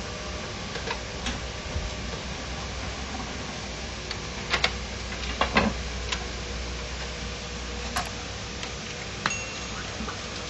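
Scattered small clicks and knocks of a screwdriver and fingers on the metal and plastic parts inside an opened HP LaserJet 1010 printer, with a few quick clicks bunched together in the middle, over a steady background hiss.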